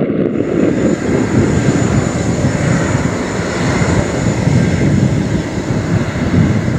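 Boeing 777-200ER's GE90 jet engines on the landing rollout: a loud, steady rushing engine noise with a thin high whine that comes in just after the start.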